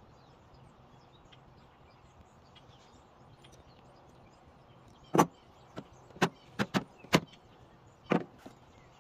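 A faint steady background, then about halfway through a run of sharp, unevenly spaced clicks and knocks from a wrench and a metal fitting being handled on the end of a rubber hose.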